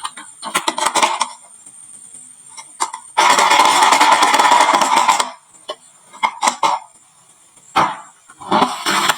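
Marbles clacking and rolling down a wooden marble-run slope: scattered clicks and knocks, then about two seconds of dense rattling from many marbles at once starting about three seconds in, followed by a few more separate clacks.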